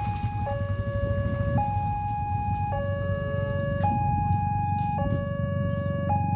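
Railway level-crossing warning alarm sounding a two-tone electronic signal, a high tone and a lower tone swapping back and forth about once a second, warning that a train is approaching and the barriers are down. A motorcycle engine hums close by, loudest at the start.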